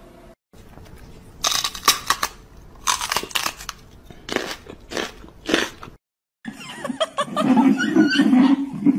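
Close-up crunching chewing from a dog, in about five short bursts. After a cut, a louder low pitched sound holds for the last two seconds.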